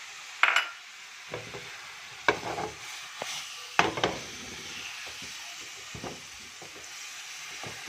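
Chicken pieces sizzling in oil in a nonstick frying pan as a silicone spatula stirs them, with a steady hiss throughout. A few sharp knocks and scrapes from the stirring stand out, the loudest about half a second, two and nearly four seconds in.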